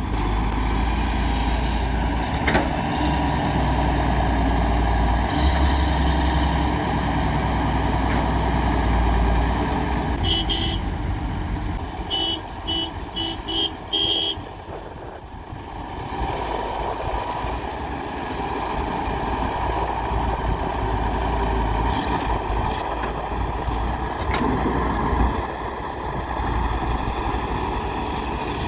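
Diesel engine of a Daewoo 170W-3 wheeled excavator running steadily; the sound dips briefly about halfway through. A quick series of short, high beeps sounds around ten to fourteen seconds in.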